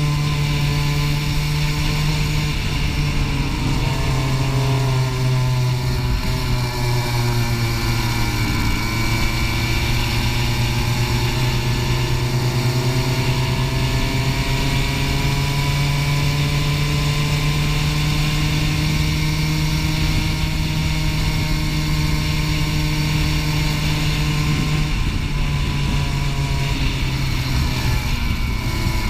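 Racing go-kart engine running hard, heard from on board. Its pitch falls as the kart slows a few seconds in, climbs again from about eight seconds in as it accelerates, and dips again near the end.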